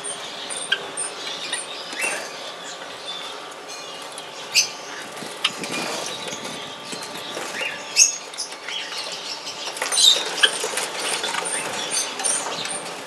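Java sparrows in an aviary giving short, sharp chirps and clicks at irregular intervals. In the background, a thin high peep repeats about twice a second.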